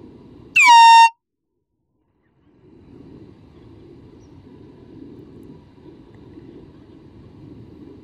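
A single very loud air horn blast, about half a second long, that dips in pitch as it starts and then holds a steady note. The sound cuts out abruptly after it, and a low rumble of outdoor background comes back a second or so later.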